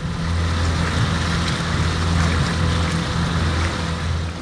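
Shanty boat's motor running steadily with a low hum, under a rushing hiss of wind and water. The sound drops off suddenly just before the end.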